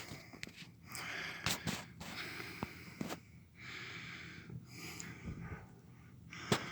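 A bushcraft hand drill at work: the wooden spindle rasps in the hearth board's notch in rough strokes about a second long, one after another, with hard breathing from the effort and a few sharp clicks.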